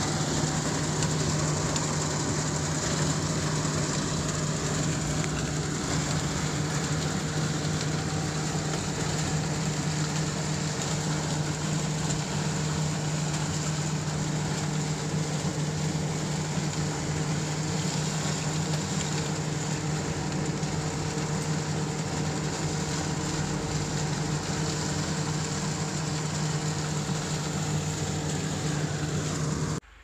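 Tractor engine and a one-row pull-type corn picker running steadily through standing corn, a constant low hum with steady machine tones, heard from a vehicle cab driving alongside.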